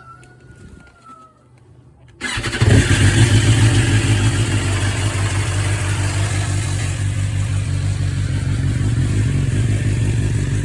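BMW S1000XR's inline-four engine starting about two seconds in. It catches, rises briefly, then settles into a steady idle after its oil change.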